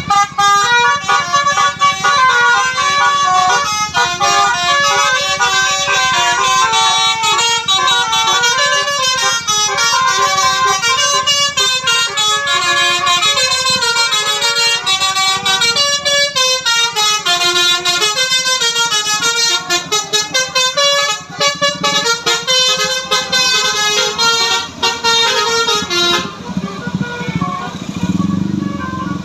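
Bus 'basuri' telolet musical air horn playing a long, fast melody of many short stepped notes, stopping about 26 seconds in. A low rumble follows near the end.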